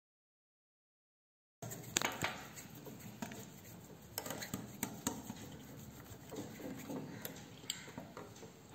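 After about a second and a half of dead silence, a wire balloon whisk beats thick whipped cream in a glass bowl, its tines clicking and tapping irregularly against the glass.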